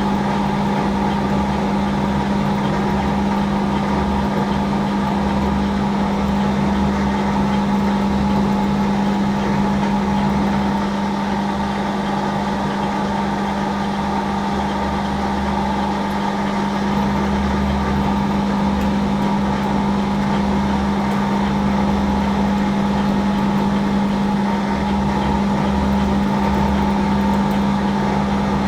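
Hafco AL960B metal lathe running steadily while a drill bores a hole into stainless steel, a constant low motor-and-gear hum with a steady higher whine above it.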